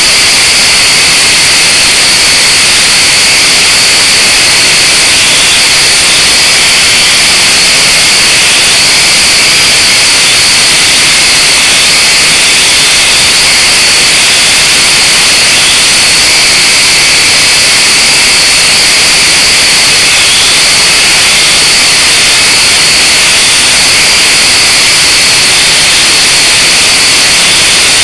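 Blade 180QX mini quadcopter's motors and propellers running in flight, picked up by a camera on the quadcopter itself: a loud, steady hissing whine that doesn't change.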